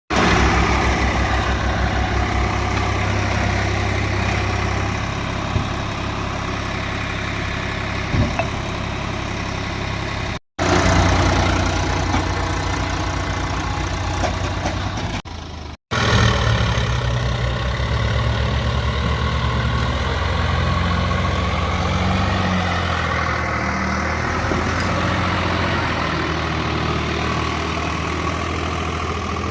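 Heavy diesel engine running steadily at low revs. The sound drops out briefly twice, about ten and sixteen seconds in.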